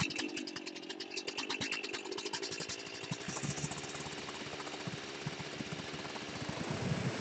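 Chainsaw's two-stroke engine running with a fast, uneven pulse at idle, then settling into a smoother, steadier sound from about halfway as the bar tip is worked into a wooden plank.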